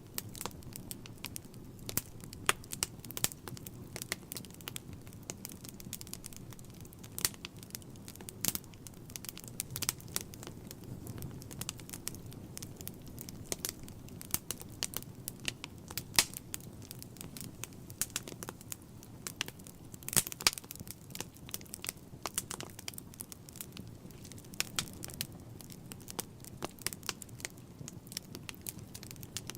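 Wood fire burning in a fireplace: irregular sharp crackles and pops, several a second, over a low steady sound of the flames.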